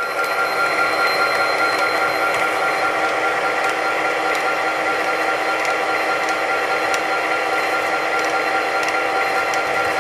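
HO-scale model diesel locomotive running slowly along the track, giving a steady mechanical hum with a high whine.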